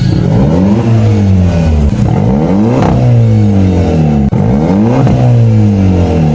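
Loud car engine revving, its pitch sweeping up and down in waves about every two seconds.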